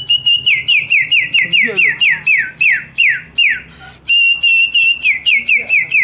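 A boy whistling with his lips in imitation of a canary's song. He holds a high note, then runs fast falling chirps at about four or five a second, in two phrases with a short break about two thirds of the way through.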